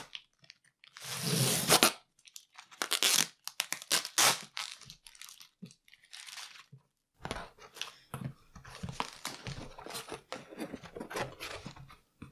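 Packing tape being ripped by hand off a cardboard box: one long loud tear about a second in, then several shorter rips. From about seven seconds, cardboard flaps and paper packing fill crackle and rustle as the box is opened.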